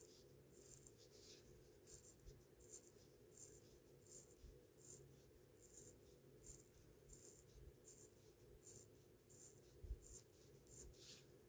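Gruen wristwatch being hand-wound at the crown: faint rasping ratchet clicks with each turn of the fingers, about one and a half strokes a second, in an attempt to start a dirty movement that won't run.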